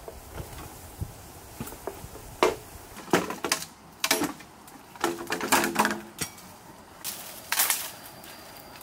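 Green bamboo poles knocking and clattering against each other as they are picked up and gathered, in irregular hollow knocks with a short ringing clatter about halfway through. Leafy bamboo stems rustle near the end.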